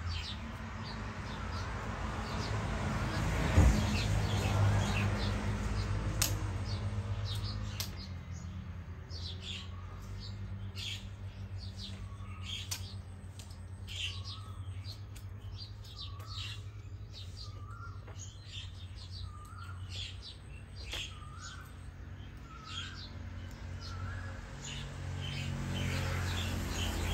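Birds chirping and calling, with one bird repeating a short hooked call at a steady pace through the second half. A low hum runs underneath, louder in the first few seconds and near the end.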